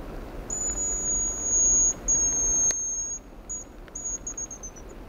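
Hazel grouse decoy whistle blown close by, imitating the hazel grouse's song: two long, very high thin whistles, then a few short notes and a quick trill that falls slightly in pitch near the end.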